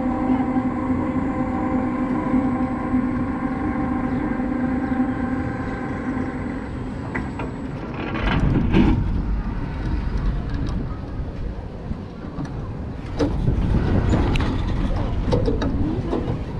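Roller coaster car with a steady mechanical hum that cuts off about eight seconds in. The car then rolls along the steel track with rumbling, sharp clicks and clatter, and rushes of wind.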